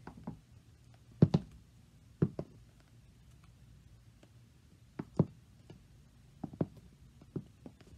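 Black patent Christian Louboutin Iriza stiletto pumps clicking on a plank floor as the wearer steps about: sharp knocks, mostly in quick pairs, a second or more apart, with quiet between.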